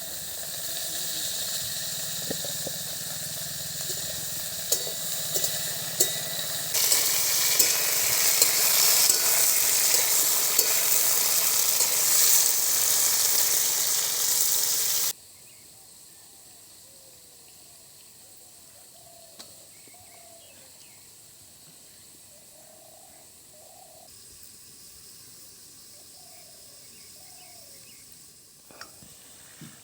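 Ridge gourd slices frying in hot mustard oil: a steady sizzle with scattered stirring clicks. It grows louder about a quarter of the way through and cuts off abruptly around halfway, leaving a quiet background with a few faint short chirps.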